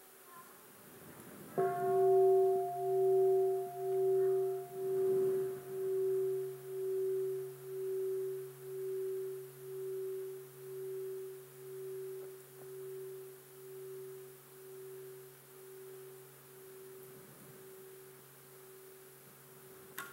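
A meditation bell of the singing-bowl type is struck once about a second and a half in. Its tone rings on with a slow pulsing wobble, about one swell a second, and fades gradually over the following seventeen seconds.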